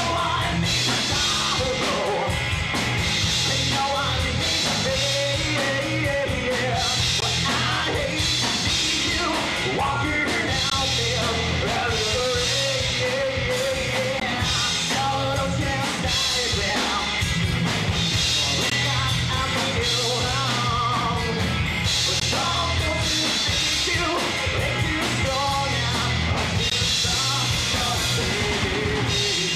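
Live rock band playing a song: electric guitars, bass and drums, with a singer's voice over them.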